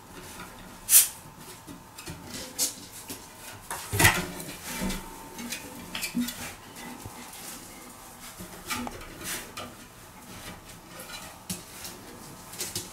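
Raccoon clambering on wooden ladder rungs: scattered claw clicks, scrapes and knocks on the wood, the loudest about a second in and at about four seconds.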